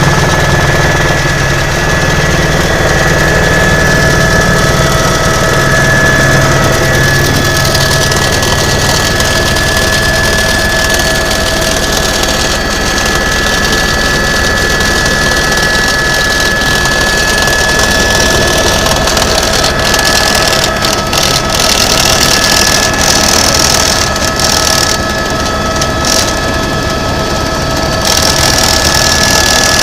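Tour helicopter running steadily: engine and rotor noise with a steady high turbine whine over it. The low drone is strong at first and eases off after about eight seconds.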